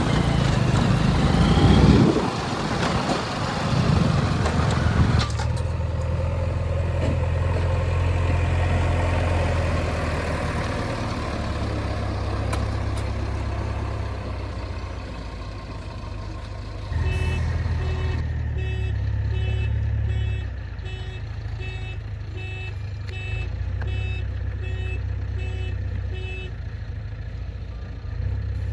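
Diesel engines of a backhoe loader and a truck running steadily, with a loud noisy rush and clatter in the first few seconds typical of earth being dumped. Past the middle a reversing alarm beeps evenly for about ten seconds.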